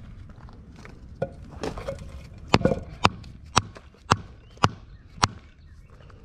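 Stone pool coping being tapped down into its mortar bed to bring it level: a light knock, then a steady run of sharp taps about twice a second from about two and a half seconds in.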